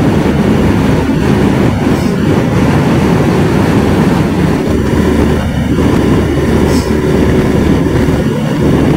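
Motorcycle riding along at road speed: a steady engine drone buried in heavy wind rush on the microphone.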